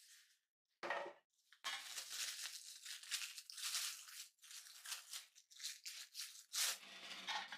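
Plastic cling wrap crinkling and rustling as it is pulled off a food pack by hand, after a single short knock about a second in.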